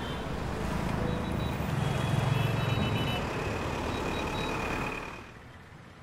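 Road traffic passing: vehicle engines and tyre noise from a van and motorcycles, swelling about two seconds in and fading away about five seconds in.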